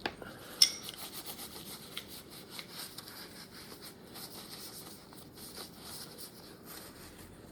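Rubbing and handling of Glock pistol parts, consistent with a paper napkin wiping excess lubricant off, with two sharp clicks in the first second.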